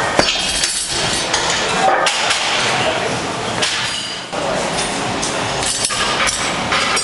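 Iron weight plates on a loaded pin clinking and knocking as the pin is lifted and set back down, with a few sharp knocks over a steady noisy background.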